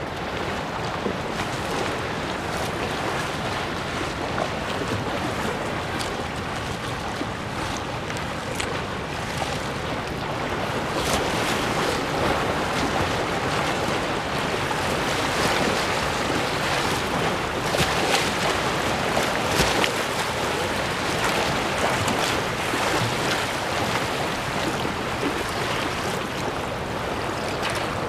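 Flood water from the river washing and lapping over a submerged walkway, with wind buffeting the microphone. It grows somewhat louder about a third of the way in.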